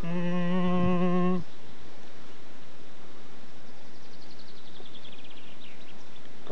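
A man humming a tune with his mouth closed, holding one wavering note for about a second and a half before it stops. After that there is only steady outdoor background hiss, with faint high chirps about four seconds in.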